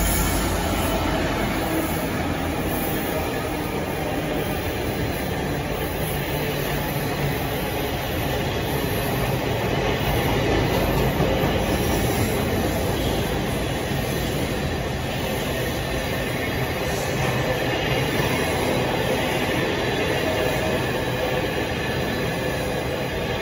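Long freight train of intermodal container wagons rolling steadily past on the rails. At the very start the Class 66 diesel locomotive, with its EMD two-stroke engine, has just gone by, and its low engine rumble fades within about a second.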